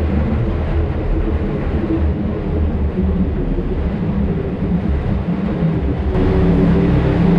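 Side-by-side UTV engine running as it drives slowly through a rock mine tunnel, a steady low rumble. About six seconds in it gets louder and fuller.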